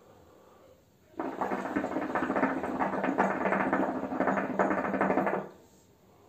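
Hookah water bowl bubbling steadily as a long pull is drawn through the hose. It starts about a second in and lasts about four seconds before stopping.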